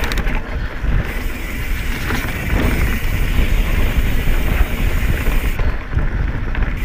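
Mountain bike riding fast down dirt singletrack: steady wind rush over the microphone and tyres rolling on the trail, with scattered sharp rattles and clicks from the bike over bumps.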